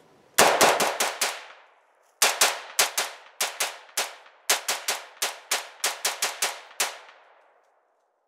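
AR-15 semi-automatic rifle fired rapidly: a quick string of about five shots, a brief pause, then about seventeen more shots at three to five a second, each with a short echo.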